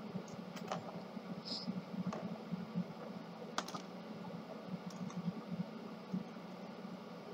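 A few small, sharp plastic clicks and taps from the printer developer unit and its parts being handled during disassembly, the strongest about three and a half seconds in, over a steady low hum.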